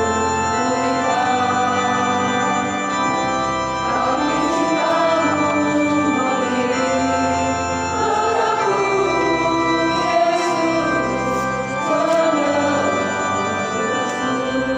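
Church choir singing a hymn with church organ accompaniment: held organ chords under the moving voices, with no pause.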